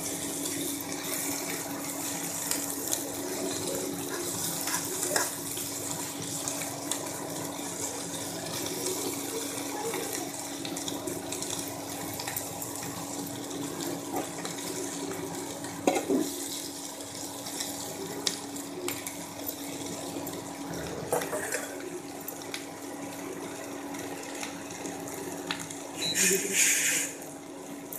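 Oyster mushrooms, onion and capsicum sizzling steadily in a nonstick frying pan over a steady hum from the induction cooktop, with a few knocks of the spatula against the pan. Near the end there is a brief louder burst of hiss.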